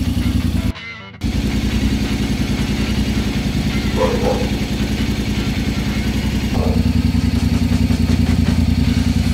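Honda X-ADV 750's parallel-twin engine idling steadily, with a half-second break in the sound about a second in.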